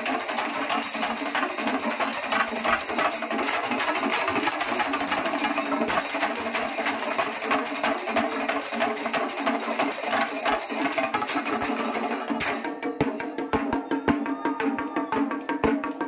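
Shinkari melam ensemble of chenda drums and cymbals playing a fast, dense rhythm. About three-quarters of the way through, the cymbal wash drops away, leaving sharp, separate drum strokes.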